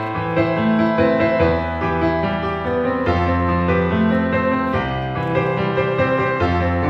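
Background music led by piano, steady chords changing about once a second.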